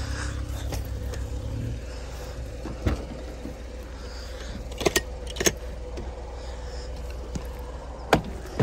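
Car engine running with a steady low hum that drops and thins out about two seconds in, followed by a few sharp clicks and knocks spread through the rest.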